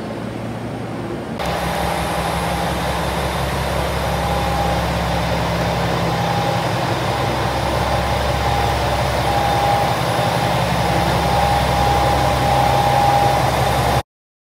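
KiHa 120 diesel railcar's engine running as it stands at the platform, a steady low growl. A thin high tone comes and goes over it.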